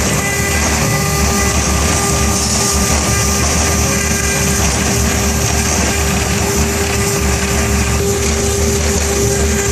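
CNC router spindle running steadily while carving with a fine conical bit, a constant whine over rumbling machine noise.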